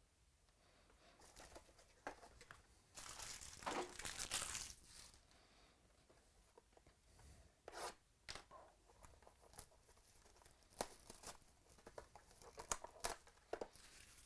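Paper or foil wrapping being torn open and crinkled by hand, loudest about three to five seconds in, followed by scattered light clicks and rustles as things are handled.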